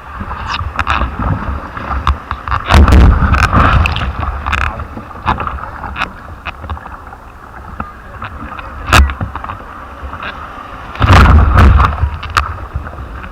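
Water sloshing and splashing with wind buffeting the microphone, in two loud rumbling gusts, about three seconds in and again near the end, among scattered clicks and knocks.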